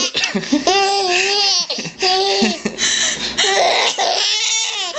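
Toddler laughing hard at his mother's sneezing, in high-pitched, drawn-out peals with breathy gasps between them.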